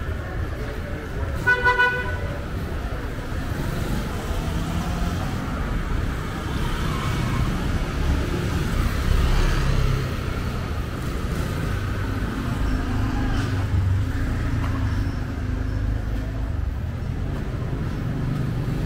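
Street traffic rumbling steadily, with motorbikes and cars passing. About a second and a half in, a vehicle horn gives three quick toots.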